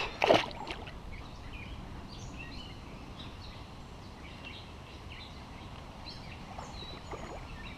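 A small bass splashing into the lake as it is tossed back, one sharp splash about a third of a second in. After it, birds chirp here and there over a steady outdoor hiss.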